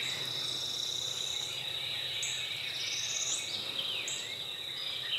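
Outdoor ambience of an insect's steady high-pitched drone, with birds chirping and singing short rising phrases over it.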